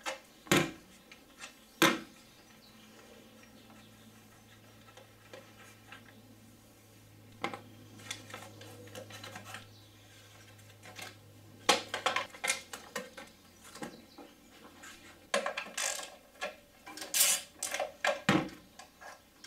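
Hand tools and loose bolts clicking and clinking on metal as the VR6 engine's plastic top cover is unbolted and lifted off. A few single sharp clicks come early and in the middle, and busier clusters of clinks come in the second half.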